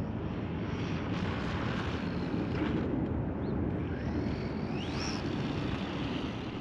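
Wind buffeting the microphone, with the faint whine of the Maverick DOHA RC truck's Hobbywing 2435 4500 KV brushless motor as it runs across the lot, rising in pitch as it accelerates about four and a half seconds in.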